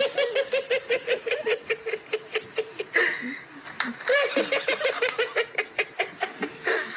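A high-pitched, rapid laugh of evenly spaced 'ha' pulses, about five or six a second, in two bouts: one at the start and another that begins about four seconds in, each opening with a rising cry.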